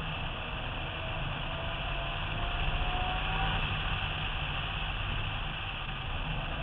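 Car engine drone heard from a roof-mounted camera, mixed with steady wind rush over the microphone, as the car drives down a track straight; a faint whine rises slowly in pitch as it accelerates.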